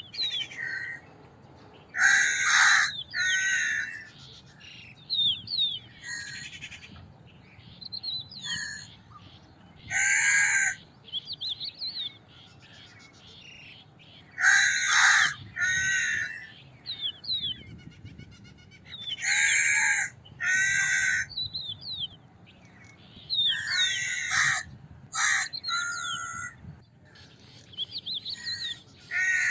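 Crows cawing: loud, harsh caws every few seconds, often two in quick succession. Smaller birds chirp in between.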